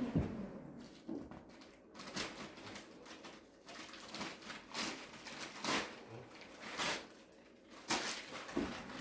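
Wood fire crackling in a wood stove: a dozen or so sharp, irregular pops and cracks as the kindling burns, the fire still only weakly alight.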